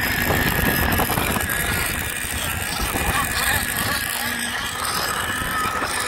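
Wind buffeting the microphone hard, over the distant whine of nitro-engined RC hydroplanes racing on the water.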